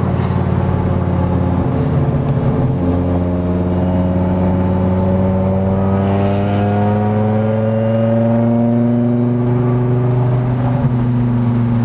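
Performance car engine under a long steady pull, its note rising slowly over several seconds as it accelerates.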